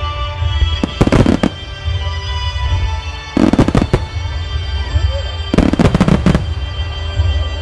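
Aerial fireworks shells bursting over a continuous deep rumble of booms, with three dense crackling volleys: about a second in, midway, and near the end. Music plays along with the display throughout.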